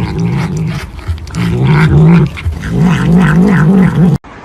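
A pet animal making long, low vocalizations that waver in pitch, in several stretches. The sound cuts off abruptly near the end.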